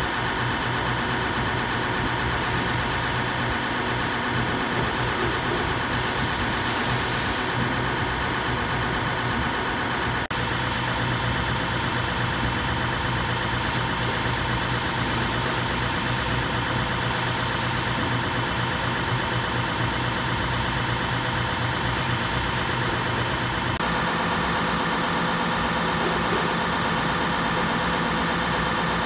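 Steady hum of running production machinery: the strip-feed drive and motors of an optical inspection machine checking a stamped metal strip. Several constant tones run through it, and the mix shifts slightly about ten seconds in and again near the end.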